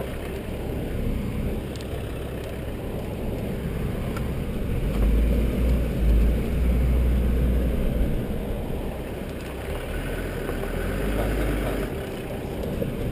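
Land Rover running at low speed on a rough dirt track, its engine and the drive over ruts and stones blending into a steady low rumble. A deeper, heavier rumble runs from about five to eight seconds in.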